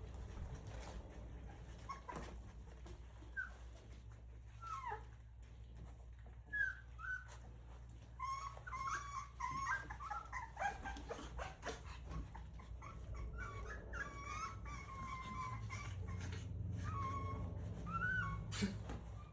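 Three-week-old Rottweiler puppies whimpering in short, high squeaks, scattered at first and coming thick and fast from about eight seconds in, over a low steady hum.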